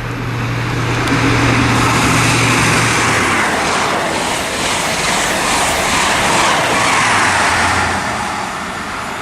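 An InterCity 125 HST passing through the station at speed: a loud, steady rush of wheels and air. A low engine hum from a power car is heard over the first three seconds, and another briefly near the end.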